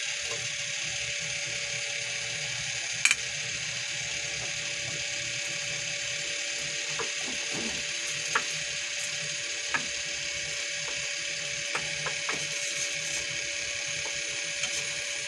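Butter melting and sizzling in a hot frying pan with a steady hiss, pushed around by a wooden spatula that knocks against the pan now and then. The loudest knock comes about three seconds in.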